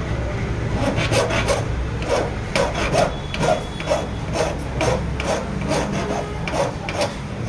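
Flat hand file rasping back and forth across a steel car key blade (a Ford Figo key), about two strokes a second. The key is being cut by hand to the marks the lock has left on the blank.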